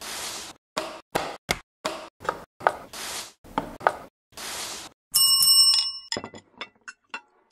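Small cardboard and wooden miniature kit pieces handled on a wooden table: short swishes of card sliding across the wood and light taps and clicks as pieces are set down. About five seconds in, a bright bell-like ring lasts about a second, followed by a run of small clinks.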